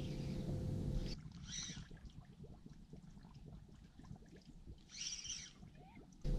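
Steady low hum of boat-on-the-water ambience, cutting to a quieter stretch of faint ticking from a spinning reel being cranked during a jig retrieve, with two short hissing sounds. The hum returns near the end.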